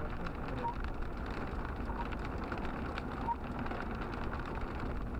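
Hail and rain striking a car's roof and windshield, heard from inside the cabin as a dense run of small ticks over a low rumble of the car.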